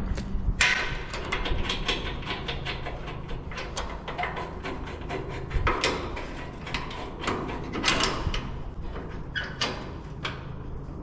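A galvanised steel gate being worked on its hinge against a steel post, giving irregular metallic clicks and knocks.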